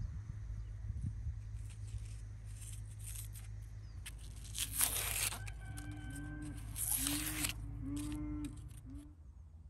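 Dry onion skin being peeled and torn off with a small knife, giving two loud papery crackling tears. A run of short, rising-and-falling low animal calls, about two a second, starts under the second tear.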